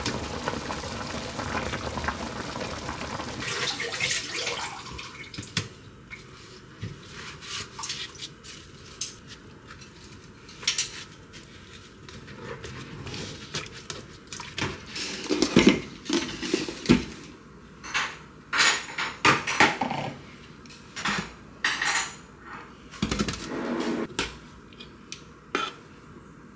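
A pan of whole chicken boiling steadily for the first few seconds, then scattered clinks and knocks of utensils against the pan and metal food containers.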